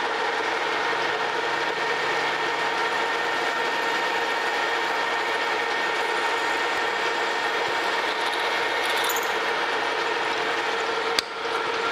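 Metal lathe running steadily with a constant hum while a 3/8-inch twist drill in the tailstock chuck is fed into the spinning metal workpiece to drill a pilot hole. A single sharp click sounds near the end.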